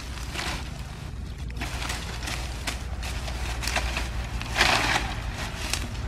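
Dry earth and leaf litter being scraped and scooped out by hand and with a knife blade, a run of short scratchy scrapes, the loudest near the end, over a steady low hum.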